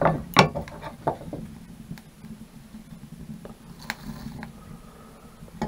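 Wood fire in a small steel stove made from a 20-pound propane tank, with scattered sharp knocks and crackles as a stick of kindling is pushed into the open firebox. The loudest knocks come near the start, with another cluster about four seconds in.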